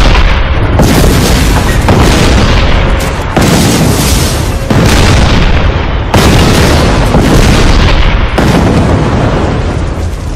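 Heavy cannon fire and explosions of a tank battle: a string of loud booms, one every one and a half to two seconds, each rolling off slowly before the next.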